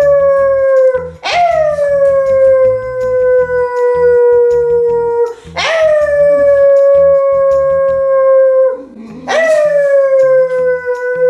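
A woman howling in imitation of a basenji's howl, a run of long 'owww' howls of a few seconds each. Each one starts with a quick rise and then slides slowly down in pitch.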